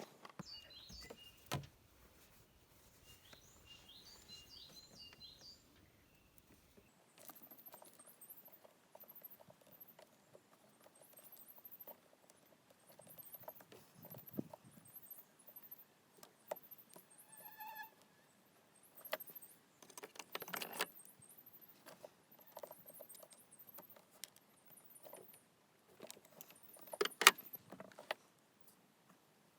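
Scattered clicks, taps and knocks of hand work on engine-bay fuel hoses and clamps, with one louder knock near the end. Faint high chirping repeats in the background.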